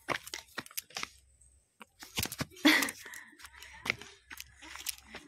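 Rustling and crackling of dry vegetation: an irregular run of sharp snaps and clicks, with a louder rustle nearly three seconds in.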